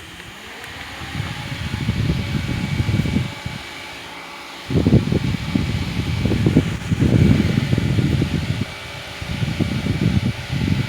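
Two small USB portable table fans running together: a faint steady motor whine over the rush of their air, with uneven low rumbling that comes and goes as the airflow blows across the microphone.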